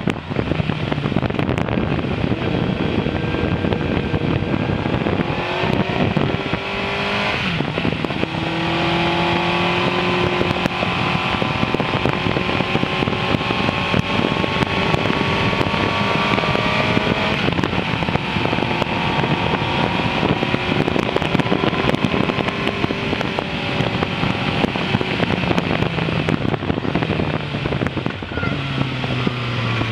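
Suzuki GSX-R 600's inline-four engine running on the move, its note climbing and dropping several times with throttle and gear changes, under heavy wind noise on the microphone.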